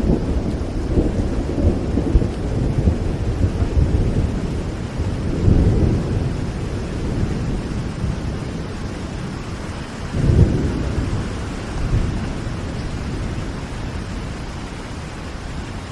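Steady rain with deep rolls of thunder, swelling loudest about five seconds in and again about ten seconds in, then easing off toward the end.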